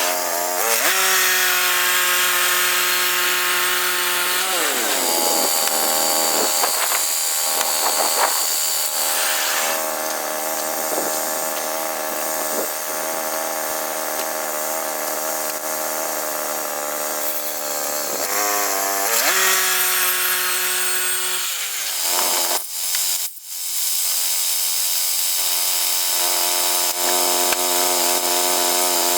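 Portable band sawmill's gas engine running while sawing a log. About four seconds in the engine note drops and stays lower and rougher as the blade cuts through the wood, rising back to speed around eighteen seconds; the note shifts again a few seconds later.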